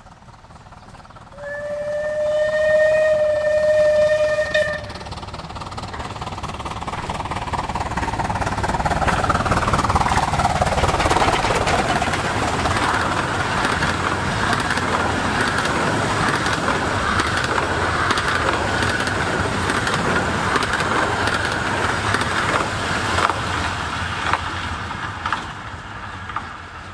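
A 15-inch-gauge miniature steam locomotive sounds one steady whistle for about three seconds, then approaches and runs past at speed. The pitch of its sound drops as it goes by, and a long clatter of carriages over the rail joints follows before the train fades away near the end.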